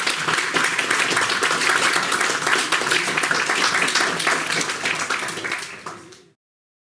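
Audience applauding after a lecture ends, a dense patter of many hands clapping that fades out about six seconds in and cuts to silence.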